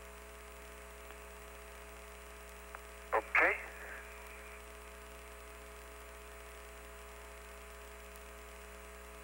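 Steady hum and hiss of the Apollo lunar radio link between transmissions, with several fixed tones and one short spoken "Okay" about three seconds in.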